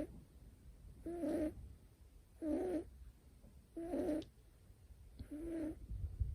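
A sleeping Scottish Fold kitten snoring. Each breath gives a short pitched, humming snore of about half a second, four of them evenly about every second and a half. The owner says it snores now and then while in good health.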